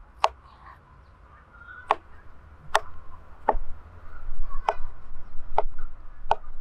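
Knife cutting through mushrooms and striking a wooden cutting board: seven sharp knocks, unevenly spaced about a second apart.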